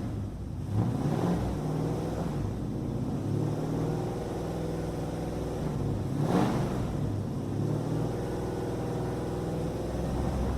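An engine running, its pitch holding and then shifting up and down in steps, with a short rush of noise about six seconds in.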